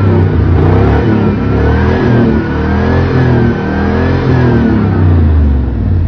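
A 2000 Cadillac Escalade's 5.7-litre V8 is being revved repeatedly while parked. Its pitch rises and falls several times, running on a newly fitted fuel pump.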